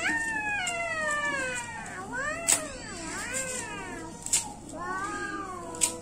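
Alarm padlock's electronic siren wailing continuously, its pitch gliding down and then sweeping up and down in arcs, with sharp clicks about two and a half, four and a half and six seconds in.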